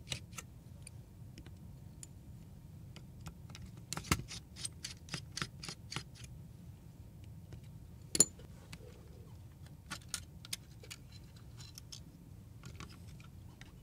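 Small metal clicks and ticks of precision tools and screws being worked on a mirrorless camera body. A run of evenly spaced clicks, about four a second, comes around four to six seconds in, and a sharp tick comes about eight seconds in.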